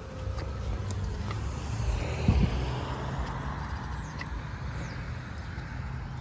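A car driving past: its road and tyre noise swells about two seconds in and fades away over the next few seconds, over a steady low rumble, with a brief low thump near the middle.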